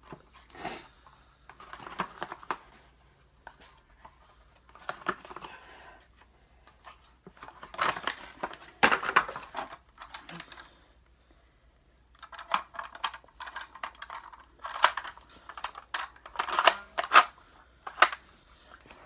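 Plastic clicking, snapping and rattling from a toy foam-dart blaster and its dart clips being handled and loaded, in irregular bursts with short pauses between them.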